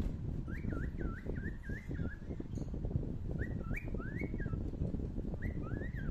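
A bird's short, high chirping calls, each sliding up and down in pitch, come in three quick bouts. A steady low rumble runs underneath.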